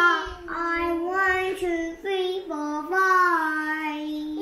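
A child singing a tune in long held notes.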